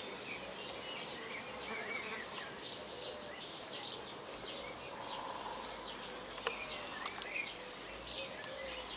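Small birds chirping and twittering, with a buzzing insect passing briefly about five seconds in.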